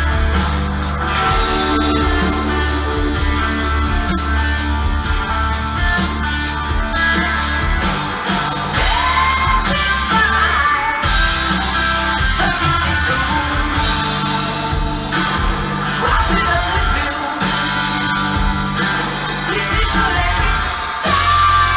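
Rock song with a male voice singing over guitar and a heavy bass line, played back over a hi-fi system: Rogers LS7t speakers with a Yamaha subwoofer. The deep bass thins out about eight seconds in, and sung lines come in later.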